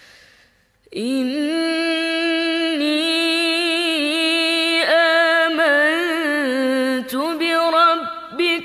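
A woman's voice chanting Quran recitation in murottal style. After a pause of about a second, she sings one long melodic line with wavering ornamented turns, with short breaks near the end.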